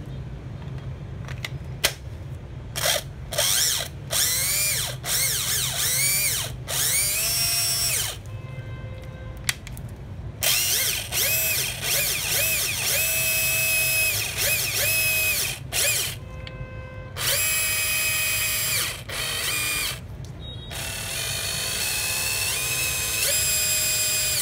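Hitachi FDS 12DVC 12-volt cordless drill running on a freshly fitted replacement motor, in a series of short trigger bursts with brief pauses between. Each burst is a whine that rises and falls in pitch as the variable-speed trigger is squeezed and let go: a test run of the new motor.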